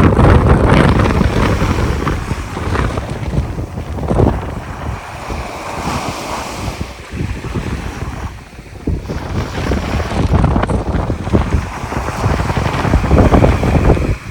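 Sea waves breaking and washing on the shore, with strong wind buffeting the microphone in low rumbling gusts. The surf swells and eases, dipping briefly past the middle before building again.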